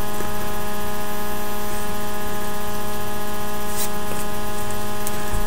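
Steady electrical hum: a constant buzz made of many evenly spaced tones over a light hiss, with no change in level.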